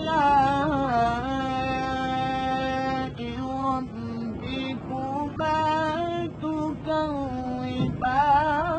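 A man's voice reciting the Qur'an in Arabic in the melodic, drawn-out style of qira'at, holding long notes with ornamented turns between them. A phrase breaks off about three seconds in and again near the end, each followed by a fresh rising phrase.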